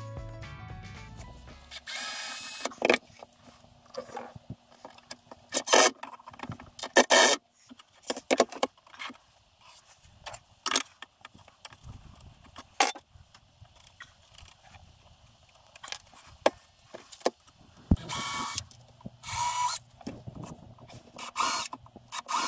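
Cordless drill running in short bursts, driving screws to fix a metal drawer runner. Between the bursts come clicks and knocks of the metal runner and tools being handled.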